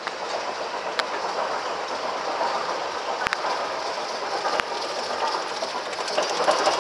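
Roller coaster train climbing the lift hill: a steady rolling rattle on the track that slowly grows louder, with a few sharp clacks.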